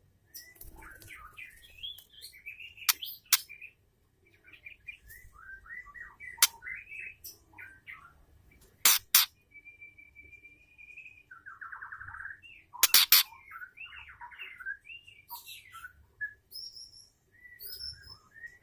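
Female white-rumped shama calling in short chirps and warbling phrases broken by pauses. Several loud, sharp clicking calls come in small clusters, and there is a brief buzzy rasp.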